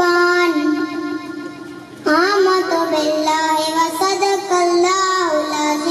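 A young boy singing a naat unaccompanied, holding long notes with gliding pitch; his voice drops away about a second and a half in and comes back with a rising note about two seconds in.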